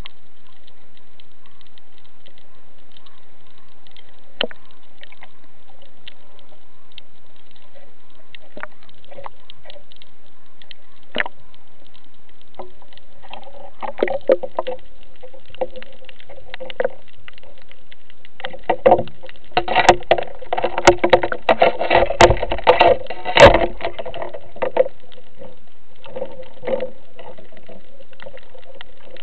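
Underwater handling noise of a speargun and its mounted camera: scattered sharp clicks at first, then from about halfway a dense run of clattering knocks and rattles, loudest a little past the middle, tailing off near the end.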